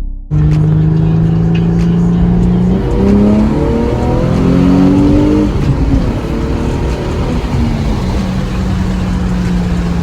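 Nissan 350Z's 3.5-litre V6 engine running as the car drives: a steady note that rises in steps under acceleration about three seconds in, falls back after about six seconds, and settles into a steady cruise.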